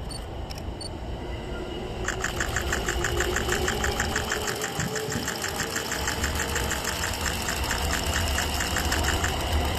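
Level-crossing warning bell ringing in rapid, even strokes. It starts about two seconds in and stops shortly before the end, over the low rumble of an approaching train that swells in the second half.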